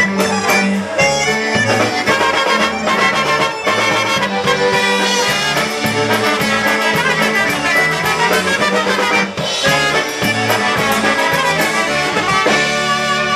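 Live polka band playing an instrumental passage: a Baldoni piano accordion and two trumpets carry the tune over electric bass and drums, with a steady beat.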